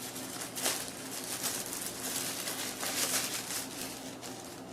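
Rustling and crinkling of packaging in short bursts as a camcorder is taken out of its case and wrapping, over a steady low hum.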